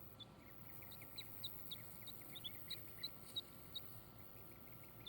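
Young poultry peeping: a rapid, ongoing run of short, high cheeps, several a second.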